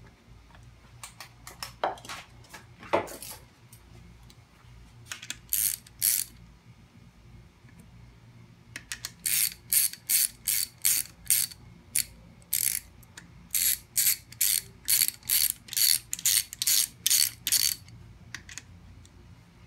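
Hand socket ratchet clicking in short back-and-forth strokes as connecting rod cap bolts are run down, a regular run of about three clicks a second from about nine seconds in to near the end, with a couple of strokes earlier. A few lighter metal clinks come near the start.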